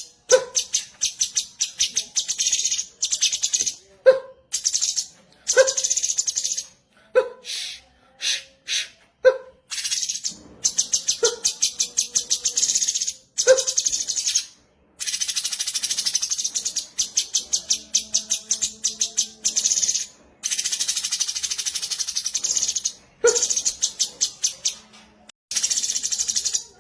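Cucak cungkok songbird singing: a series of rapid, high, buzzy trills, each lasting one to a few seconds and often opening with a short lower note, with brief pauses between them.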